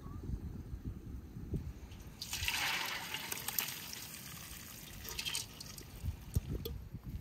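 Wet rice tipped from an enamel tray into a metal colander, a pouring, trickling rush for about three seconds in the middle, over a low rumble.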